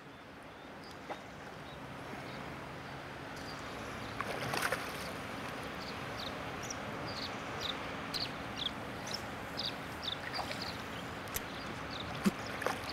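River water lapping and swirling against an aluminium boat hull, under a steady low hum, growing louder over the first few seconds. From about three seconds in, a scatter of short high chirps and a few clicks.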